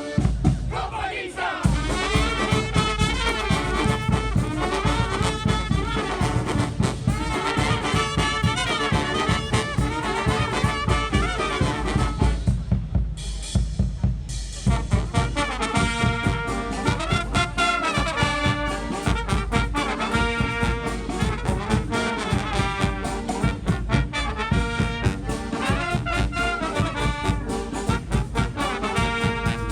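Live street brass band playing: trumpets and trombones over a steady drum beat. The horns briefly thin out about halfway through while the drums keep going, then come back in.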